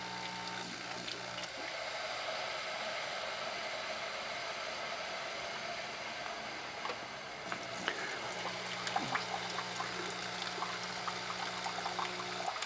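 Bunn My Cafe single-serve coffee maker brewing in its pulsed mode: water rushing through the machine with a steady hiss, and the brew pump's low hum cutting out about a second and a half in and starting again about eight and a half seconds in.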